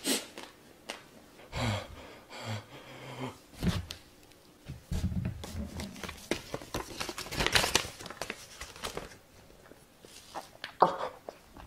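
A man blowing out hard through pursed lips and breathing heavily, with a few short moans, his mouth burning from an extremely hot chili chip.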